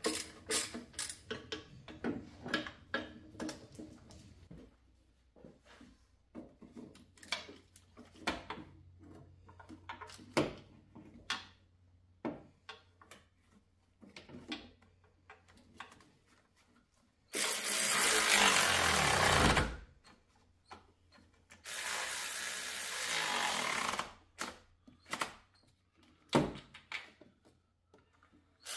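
Ratchet clicking in quick, even strokes, then scattered clicks, as valve cover bolts are started. Past the middle a cordless power ratchet runs twice, about two and a half seconds each time, running the bolts down.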